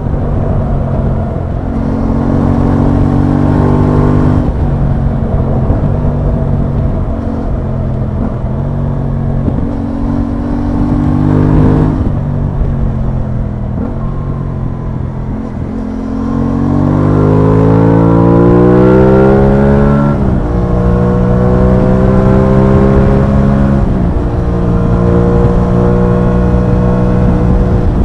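Aprilia Tuono 660's parallel-twin engine under way on the road, running at steady revs with brief breaks for gear changes, and revving up in one long rise a little past halfway.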